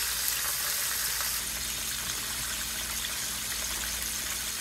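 Flour-coated chicken pieces deep-frying in oil in a cast iron skillet: a steady sizzle of bubbling oil.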